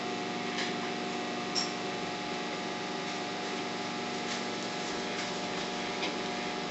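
A steady machine hum made of several held tones, with a few faint clicks.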